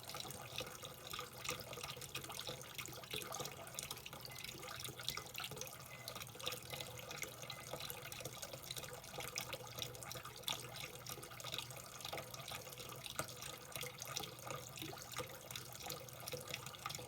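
Water running from a kitchen tap into a sink, with scattered small splashes and light clatters.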